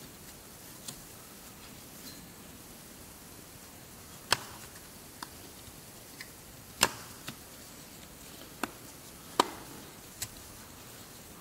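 Scattered sharp clicks and knocks, about nine in all with three louder ones, as a new toothed timing belt is worked by hand onto the engine's sprockets and tensioner. A faint hiss runs between them.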